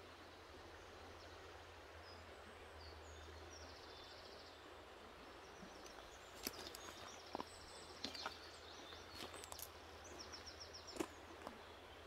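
Faint riverside ambience: a steady soft hiss with small birds trilling faintly now and then. Several small clicks and taps come in the second half, the loudest about 11 seconds in.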